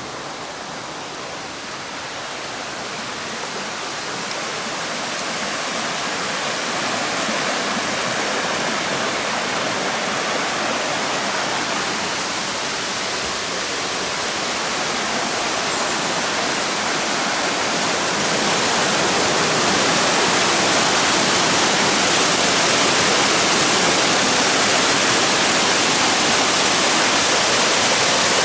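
Steady rush of falling water from a waterfall. It grows gradually louder, rises again about two-thirds of the way through, then holds steady.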